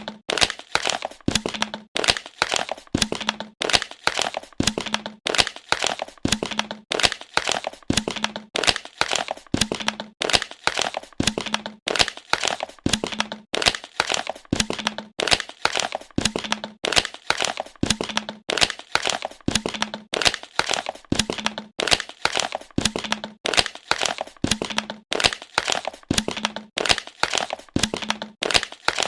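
Plastic bottle being squeezed and crumpled, giving repeated crackling crinkles in a cycle that recurs about once a second.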